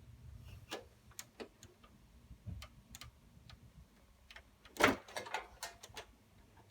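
Clicks and knocks of a desktop computer's case being handled and opened, irregular, with one sharp, loud knock about five seconds in.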